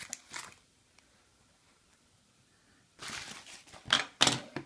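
Cardboard product box being handled and opened: a short rustle, then about three seconds in a second of rustling and scraping that ends in two sharp clicks.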